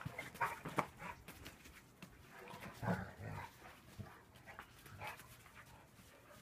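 Dogs making a few short, quiet vocal sounds: several near the start, a stronger low one about three seconds in, and a fainter one about five seconds in.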